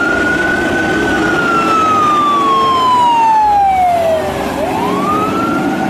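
Fire truck siren wailing: one slow fall in pitch over about four seconds, then a quick rise back up near the end, over the low rumble of the truck's engine.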